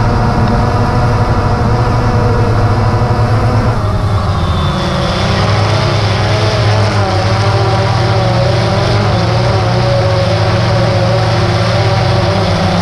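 DJI Phantom 2 quadcopter's electric motors and propellers whining steadily, heard close up through the camera mounted on the drone. The pitch shifts about four seconds in as the motor speed changes, then wavers slightly.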